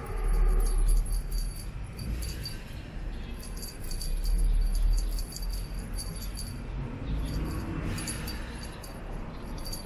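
Small bell on a cat toy jingling in quick spurts as the toy is jerked along the ground, with short pauses between shakes.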